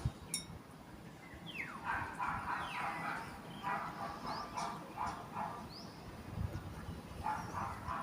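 A dog whining and yipping in a run of short high cries that starts with one falling cry, pauses for about a second and a half, then starts again near the end.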